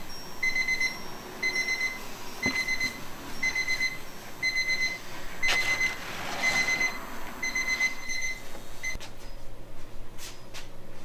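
An electronic alarm beeps in short pulsing bursts about once a second, then stops abruptly about nine seconds in. A faint knife scrape through the cake and a few light clicks sit beneath it.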